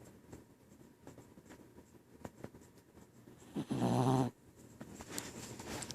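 Sleeping dog snoring: faint breathing, then one loud snore with a steady low pitch, lasting under a second, a little past halfway.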